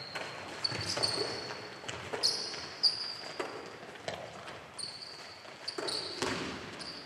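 Athletic shoes squeaking sharply on a sports hall floor, several times, as players run and stop, mixed with thumps of a ball being passed and caught, echoing in the large hall.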